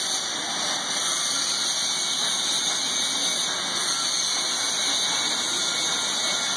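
Automatic welding machine welding a shock absorber base cup or spring seat as the part turns on its fixture: a steady hissing noise from the welding torches.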